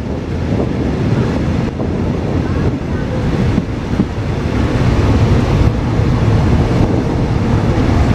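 Diesel-hauled express train running past, a steady low rumble that grows louder in the second half, with wind buffeting the microphone.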